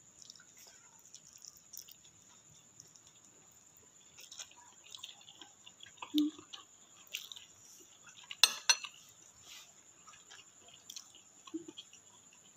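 Fork clinking and scraping against a bowl while someone eats noodles, with faint chewing and mouth sounds. Small scattered clicks, the sharpest clink about eight seconds in.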